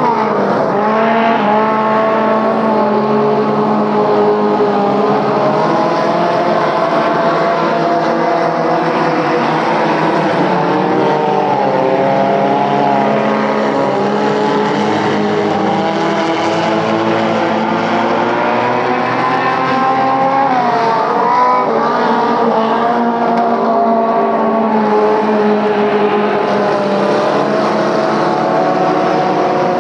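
Several small compact dirt-track race cars running laps, their engines overlapping and revving up and down as they go around the oval.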